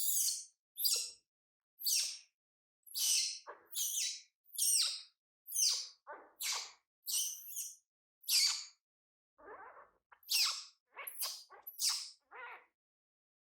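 Baby monkey giving a string of short, high-pitched squeaking cries, about one a second, which stop near the end.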